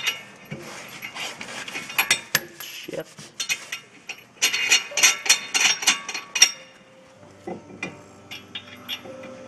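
Runs of quick metallic clicks and clinks as steel lug nuts are threaded onto the wheel studs to hold a new drilled and slotted brake rotor against the hub. The densest run comes in the middle, and the clicks thin out near the end.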